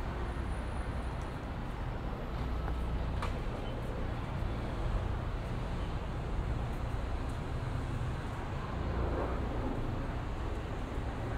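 City street traffic: a steady low rumble of cars and other vehicles passing.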